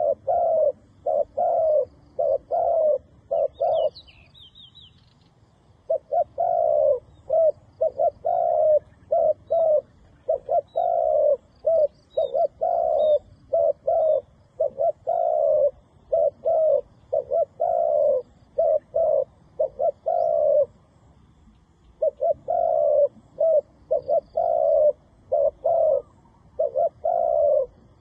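Dove cooing in quick runs of short, low coos, several a second, broken by two pauses of a second or two. Faint high chirps of small birds come through behind.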